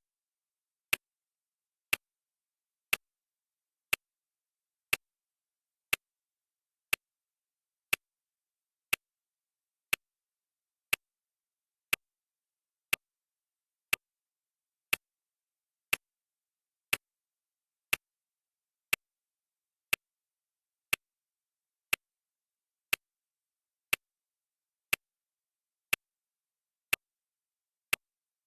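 Clock ticking, one short sharp tick each second in a steady, even rhythm, with dead silence between ticks.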